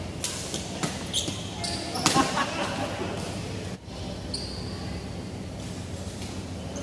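Badminton play: a few sharp racket-on-shuttlecock hits in the first two seconds, and shoes squeaking briefly on the wooden court floor. Voices call out about two seconds in, the loudest moment.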